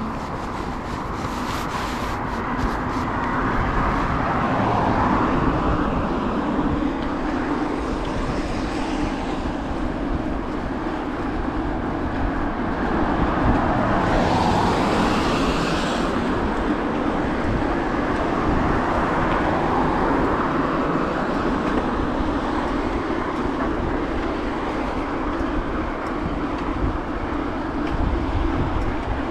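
Steady road noise heard from a moving bicycle beside a city road. Several cars pass, their tyre noise swelling and fading, the loudest about halfway through.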